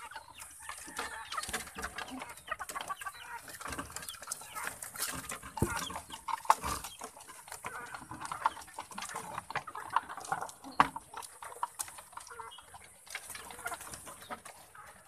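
Chickens clucking, mixed with pigeons pecking grain and flapping and scrambling on a slatted wooden cage. There are sharp taps throughout and a few louder knocks around the middle.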